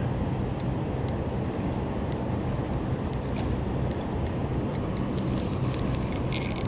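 Steady rush of river current with a low hum underneath. Near the end a spinning reel starts being cranked, with a high whir from its gears.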